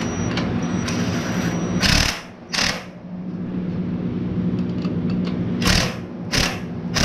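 Cordless impact wrench running a mower caster wheel's axle bolt down against a nut held with a spanner. Its motor hums steadily, then it hammers in five short bursts, two about two seconds in and three near the end, snugging the freshly re-bearinged wheel only so tight that it still spins freely.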